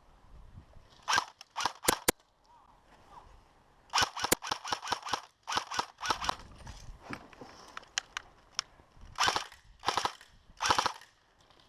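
Airsoft guns firing in repeated short bursts of rapid, sharp pops. The longest string comes about four seconds in, with several shorter bursts before and after it.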